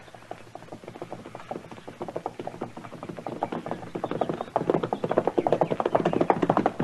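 Horses' hoofbeats approaching at a fast gait, a rapid patter of hoof strikes growing steadily louder as the riders draw near.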